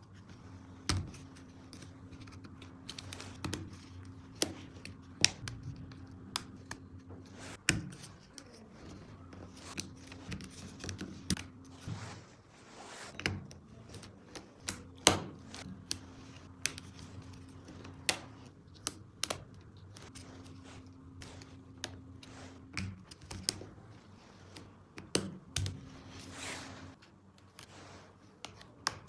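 Hard plastic toy track pieces clicking and knocking together during play, with a low hum that starts and stops every few seconds.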